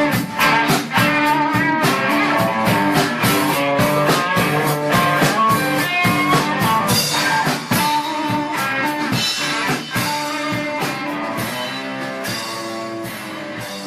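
Background rock music with guitar and drums, slowly getting quieter over the last few seconds as it fades out.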